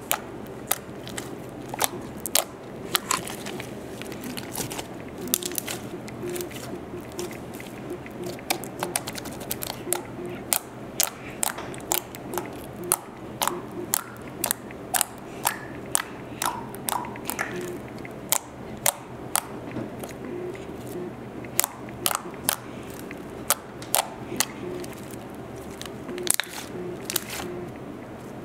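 Homemade glue-and-borax glitter slime being kneaded and squeezed by hand, giving sharp, irregular clicks and pops a few times a second as air pockets in it burst.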